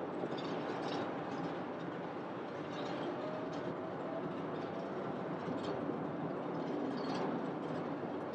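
Twin-engine jet airliner on final approach, heard as a steady, distant engine rumble, with a faint whine rising slightly about three seconds in.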